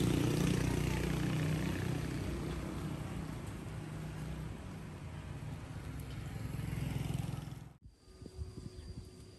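An engine running steadily, then a sudden cut near the end to much quieter surroundings with a faint steady tone and a few light clicks.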